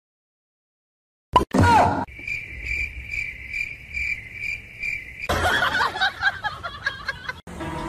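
After a moment of silence, a short loud sound falling in pitch, then a high cricket-like chirping that pulses about three times a second for around three seconds, giving way to a couple of seconds of jumbled, noisier sound.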